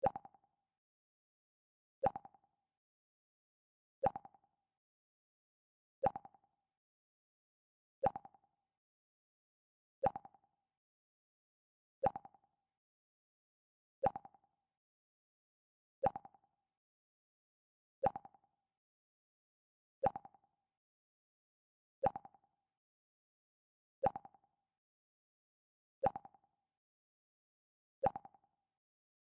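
Mac OS X 'Pluck' sound effect: a short plucked note that dies away quickly, repeating every two seconds, about fifteen times.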